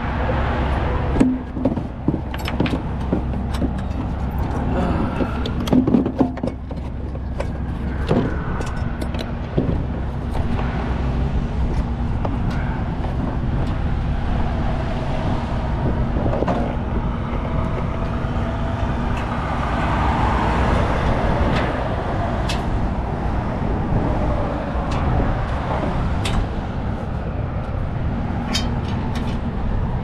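A heavy truck engine idling with traffic going by, a steady low rumble and hum. Over it come scattered metal clanks and clicks of hooks and straps as a tow light bar is hung on the back of a semi trailer, thickest in the first ten seconds and again near the end.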